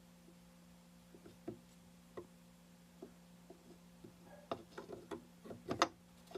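Faint steady hum with scattered light clicks and knocks, which come more often and louder in the last couple of seconds.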